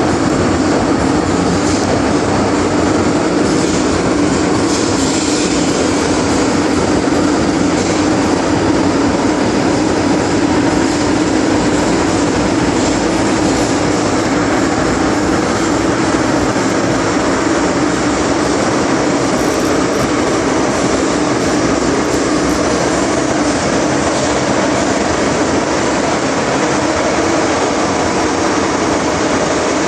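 MTR Island Line metro train running between stations, heard from inside the carriage: a steady rumble of wheels on rail, with a constant low hum throughout.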